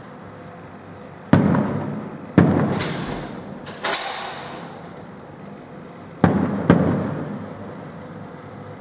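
Aerial firework shells bursting overhead: five sharp bangs, each followed by an echoing rumble that dies away. Two come about a second apart, then a smaller one with a brief high hiss, then a close pair about half a second apart.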